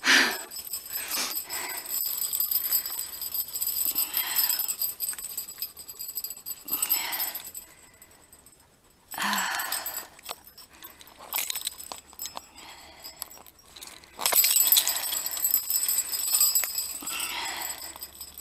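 Metal tags and harness clips on a dog jingling in uneven bursts as the dog moves, with a short lull partway through.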